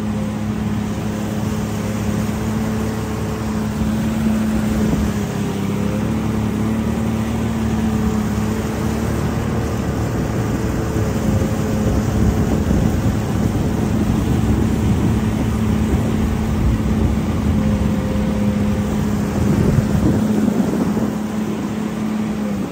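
Jet ski engine running steadily, a constant drone that holds nearly the same pitch throughout, over a wash of water and wind noise.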